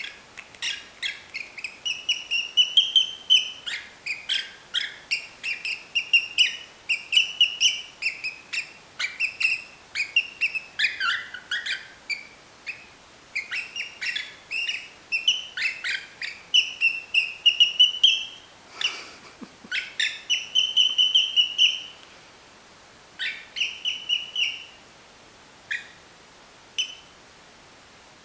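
Pet cockatiel whistling and warbling a fast run of short chirpy notes and longer rising whistles. A brief rustle comes about two-thirds through, and the whistling thins to a few scattered chirps near the end.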